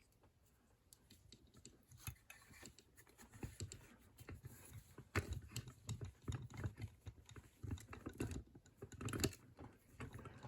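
Hands adjusting small gear at the open lock: a quick, irregular run of light clicks, taps and knocks that starts about a second in, with a few louder knocks along the way.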